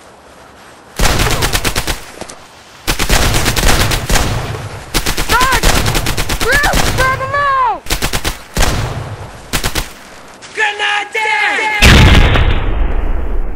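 Machine-gun fire in several long rapid bursts, the first about a second in. A man's drawn-out cries come over the middle and again shortly before the last and loudest burst near the end.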